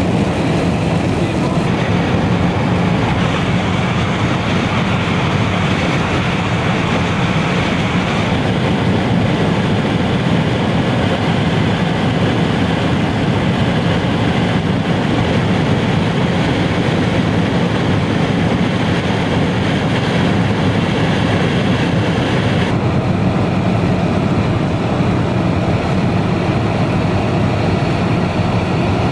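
Steady driving noise inside a moving car: engine, tyres and wind running evenly with a low rumble and a hiss over it. The hiss eases slightly about 23 seconds in.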